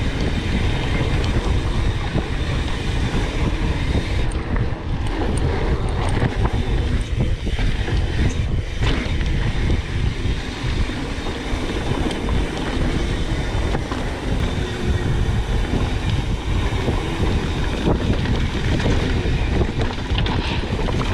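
Wind rushing over the microphone while a mountain bike rolls along a dirt trail, with a steady rumble of tyres and many small knocks and rattles from the bike going over rough ground.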